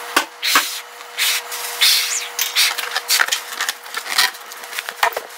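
A latex party balloon being blown up by mouth: short breathy puffs into the balloon, with the squeaky rub of fingers on the stretched latex as the neck is pinched to tie it.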